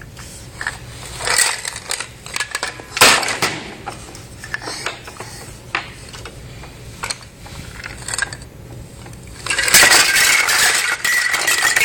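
Small toy kitchen pieces being poured into a toy skillet, clinking and clattering: scattered clicks at first, then a dense run of clattering near the end as the pan fills.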